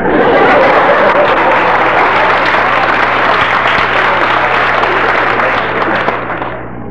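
Audience applauding, starting suddenly and tapering off near the end.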